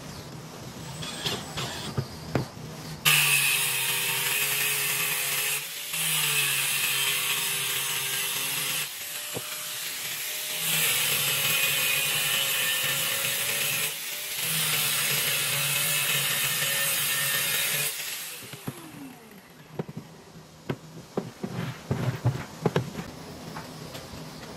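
Angle grinder with an abrasive disc grinding the edge of a steel corner bracket. It starts about three seconds in and runs steadily with a few brief breaks for about fifteen seconds, then is switched off and winds down with a falling whine. Light clicks and knocks of parts being handled come before and after.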